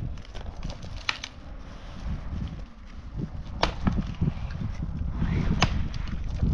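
Dry wooden branches snapping as they are broken up by hand for firewood: a handful of sharp, separate cracks a second or two apart.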